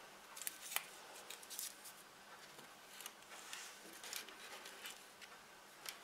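Onions being handled and set into a plastic tray: faint, scattered crackles and ticks of dry, papery onion skins, with light knocks as the bulbs are put down.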